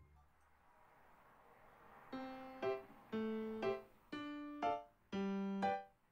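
Background music: a simple keyboard-like tune of short pitched notes, a pair about every second, starting about two seconds in after a soft rising hiss.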